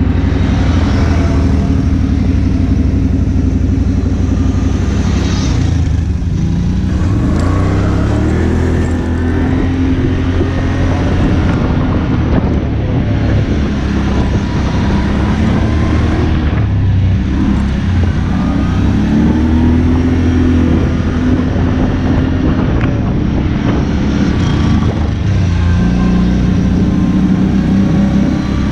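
ATV engines running while riding a dirt trail, loud and continuous, the engine pitch rising and falling several times as the throttle opens and closes.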